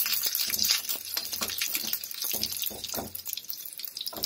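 Sliced shallots, curry leaves and dried red chillies sizzling in hot oil in a small metal seasoning pan: a tempering being fried. A metal spoon scrapes and clicks against the pan again and again as it is stirred.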